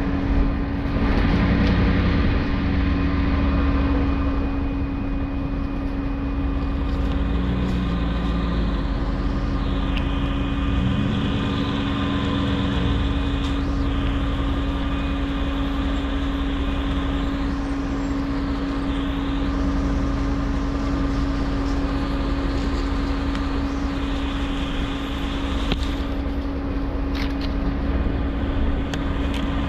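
4x4 vehicle driving along a rough mountain dirt road: steady engine and road noise with a constant low hum, and a few sharp knocks near the start.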